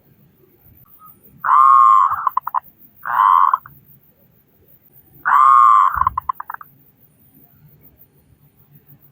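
Zebra dove (perkutut) cooing loudly in three phrases. The first and third are a long rolling coo that breaks into a quick run of short stuttering notes, and the middle one is a shorter single coo.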